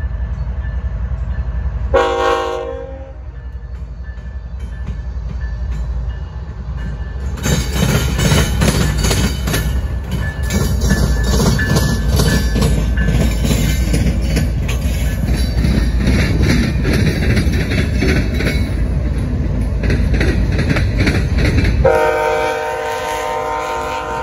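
CN freight train's diesel locomotives running past with a steady low rumble. A short horn blast comes about two seconds in. From about seven seconds in, the locomotives pass close with louder rumbling and wheels clicking over the rails, and a long multi-note horn blast starts near the end.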